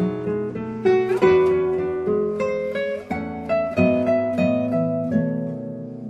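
Classical guitar quartet playing: several classical guitars plucking overlapping melody and accompaniment lines, notes ringing over one another, with louder struck attacks about a second in and again near four seconds.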